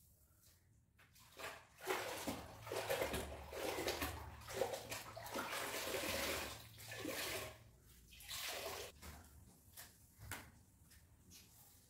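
Water sloshing and splashing in several surges, dying down near the end: a floor mop or cloth being rinsed and wrung out for mopping the floor.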